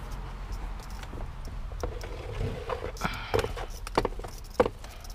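A series of sharp knocks and clicks, mostly in the second half, over a low steady hum.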